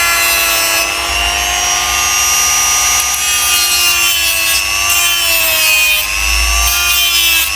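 Ryu RDG 3.2 mini die grinder running with a small cut-off disc slicing through PVC pipe: a steady motor whine with a grinding rasp, its pitch sagging slightly a few times as the disc bites into the plastic.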